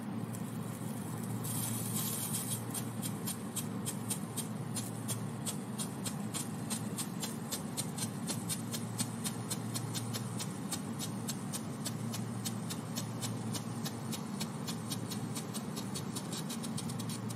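Ground fountain firework spraying sparks: a steady hiss that starts about a second and a half in, overlaid with a rapid, evenly spaced crackle of about four sharp pops a second.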